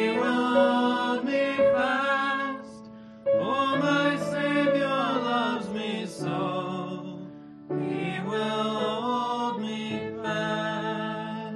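Mixed voices, two men and a woman, singing a hymn in harmony: three slow, drawn-out phrases, the last one dying away near the end.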